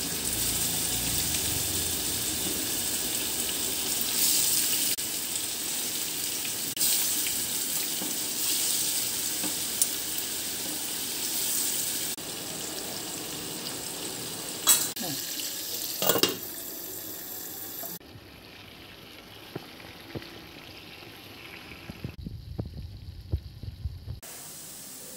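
Fish pieces shallow-frying in hot oil in a frying pan, a steady hiss and sizzle that changes level at several cuts and grows quieter near the end. A couple of sharp knocks sound about two-thirds of the way through.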